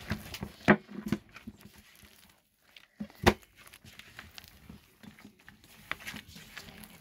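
Hands in plastic gloves kneading and punching sweet potato and glutinous rice flour dough in a stainless steel bowl: soft handling noise with a few sharp knocks, the loudest under a second in and another a little after three seconds.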